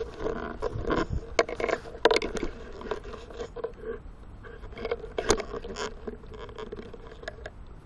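Handling noise as a camera is carried and set down: irregular scraping and rustling, with crunching in dry leaf litter and a few sharp knocks, the loudest about two and five seconds in.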